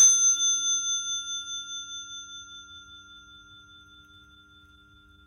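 A Crane Suzu bicycle bell ringing on after a single strike: a clear, high, bell tone made of several steady pitches that fades slowly away over about five seconds, with a long sustain, in a hallway without noise damping.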